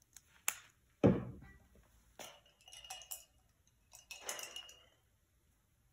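Painting supplies being handled, a paint plate and paint bottle, giving a run of separate clinks and knocks. The loudest knock comes about a second in. It happens as fresh white paint is put out on the plate.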